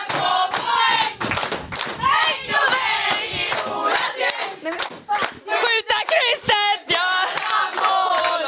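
A group of young women singing a victory chant together, shouting it out loud and clapping in rhythm.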